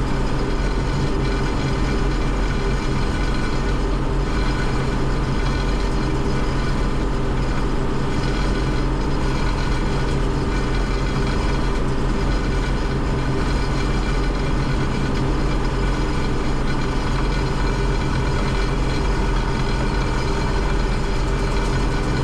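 Combine harvester running steadily while harvesting corn, a constant engine drone with the hum of its threshing machinery and no change in pitch or level.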